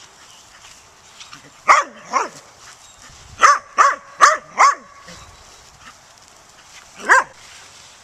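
Small dog barking: seven sharp barks, a pair, then four in quick succession, then a single bark near the end.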